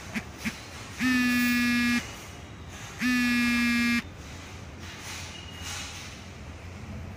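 A buzzing electric horn sounds two very short taps, then two loud blasts of about a second each, about a second apart. Each blast holds one steady pitch.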